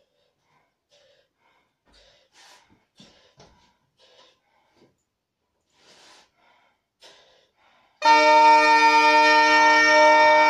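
Zampogna (southern Italian bagpipe): faint puffs of breath as the player blows up the sheepskin bag, then about eight seconds in the drones and chanters sound all at once, a loud held chord of several steady tones with a melody moving over them.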